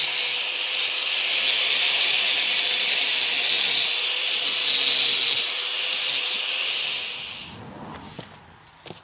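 A handheld power grinder with a small, worn-down disc grinding a damaged metal edge, the motor running at a steady pitch under a harsh scraping hiss. It fades out about seven and a half seconds in, and a few light clicks follow.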